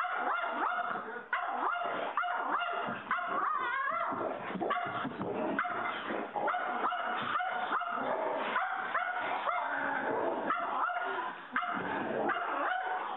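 Dogs barking and yipping over and over in quick succession, short pitched yaps following one another several times a second.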